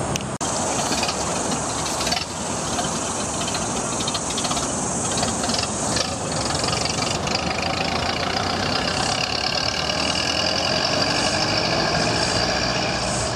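Engines of a vintage double-decker bus and a vintage car running as they pull away along a road, with a steady high whine through the second half.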